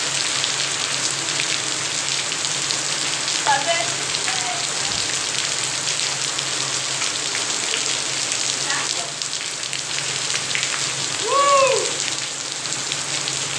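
Heavy rain pouring onto a paved yard, a steady hiss of splashing drops. A few brief pitched calls rise over it, the loudest about eleven seconds in.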